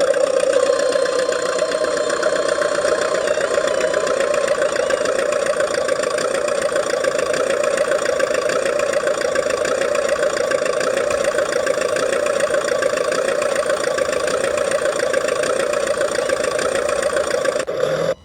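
RC model DT-54 bulldozer running steadily with a continuous mechanical engine-like drone, cutting out for a moment at the very end.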